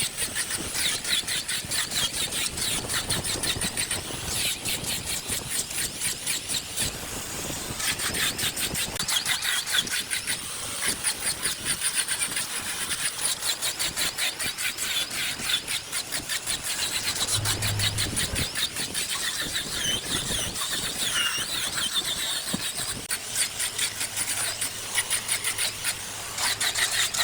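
Wood lathe turning a block, the tool cutting into the spinning wood with a rapid, steady chatter and a high squeal.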